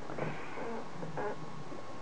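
Low steady room noise and hiss, with a brief faint vocal sound from the narrator about a second in.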